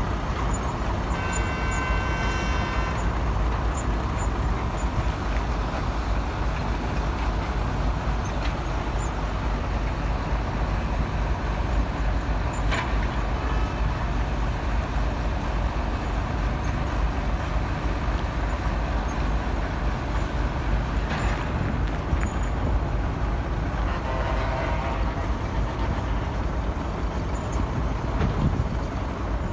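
A heavy engine running with a steady low rumble, with a short horn-like tone about a second in and a couple of sharp clicks later.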